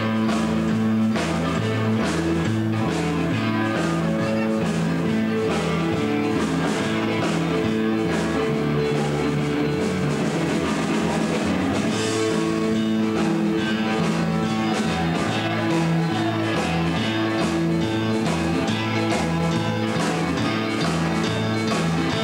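Live rock band playing: guitar over a bass line that steps from note to note, with a steady beat.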